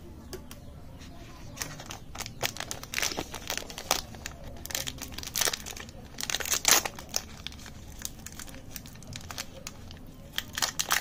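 Plastic candy wrappers crinkling and tearing as they are opened by hand: a flurry of sharp crackles from about a second and a half in to past the middle, loudest around two-thirds of the way through, and another brief flurry near the end.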